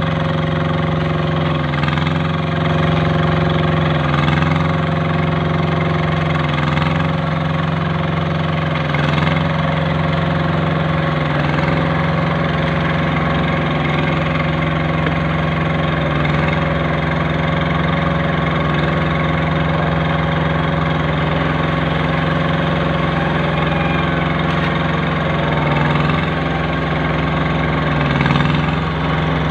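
Engine of a concrete curb-stone forming machine running steadily, its pitch dipping briefly every couple of seconds.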